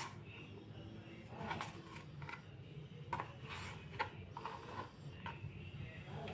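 Small kitchen knife slicing a tomato on a plastic chopping board: faint, irregular taps of the blade against the board, several in quick succession around the middle.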